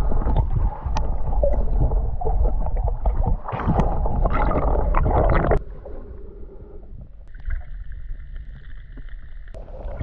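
Muffled water sloshing and bubbling heard through a submerged camera as it moves underwater, loudest in the first five and a half seconds. After that it drops, and a steady faint high whine runs from about seven to nine and a half seconds.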